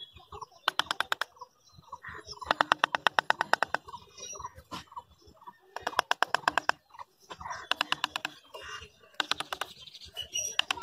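Repeated bursts of rapid, evenly spaced clicking, each burst lasting about half a second to a second, with faint bird chirps behind.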